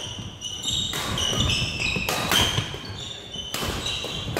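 Badminton rally on a wooden gym floor: court shoes squeaking in short high chirps as the players shift their feet, with three sharp racket strikes on the shuttlecock about a second and a third apart.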